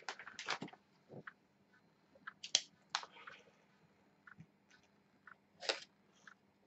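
Scattered faint crinkles and clicks of a plastic packaging bag being picked up and handled, with a few sharper ticks, the loudest about two and a half seconds in and again near the end.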